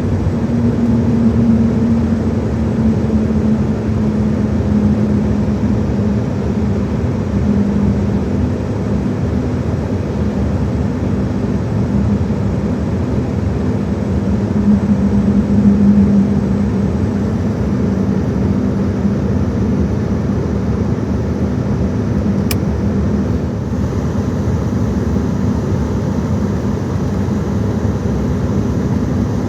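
Steady cabin rumble inside an Embraer 195-E2 on the ground, with a low hum. A single short click comes about three quarters of the way through.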